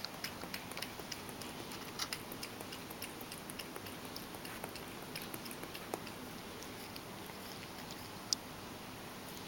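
Ragdoll cat lapping milk from a stainless steel bowl: a run of quick, small wet tongue clicks, several a second, that thin out near the end, with one sharper click.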